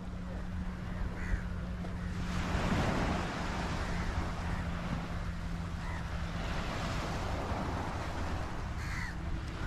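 Crows cawing now and then, single short calls a few seconds apart, over a steady rushing background.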